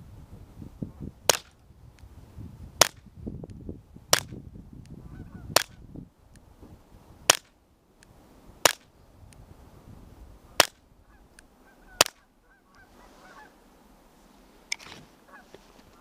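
Eight suppressed .22 LR pistol shots of Eley subsonic ammunition fired through a Tactical Solutions Axiom suppressor, evenly paced about one and a half seconds apart, each a short sharp crack. Hearing safe.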